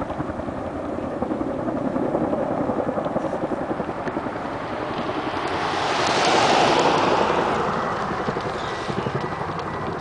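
Chinook tandem-rotor helicopter flying overhead with a rapid, steady rotor beat. It grows louder to a peak about six to seven seconds in, then eases off.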